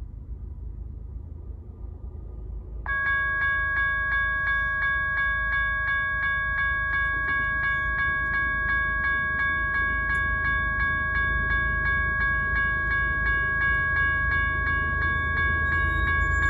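Railroad grade-crossing warning bell starts ringing about three seconds in, a steady rapid ding about three times a second, set off by an approaching train. Under it a low rumble runs throughout.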